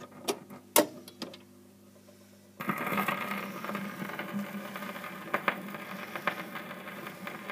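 Electric record player: a few sharp clicks over a low steady hum, then about two and a half seconds in the stylus sets down on the record and steady surface hiss and crackle of the lead-in groove begin.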